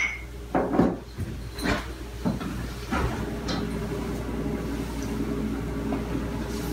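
A few sharp knocks and clacks in the first three and a half seconds, over a steady low hum.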